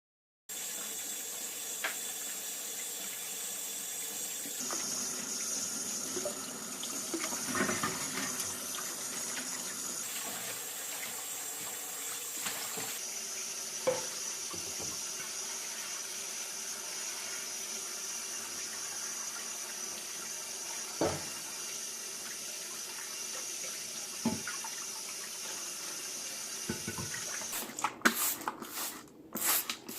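Tap water running steadily into a sink, with a few light knocks and clinks here and there. Near the end the flow turns choppy and uneven.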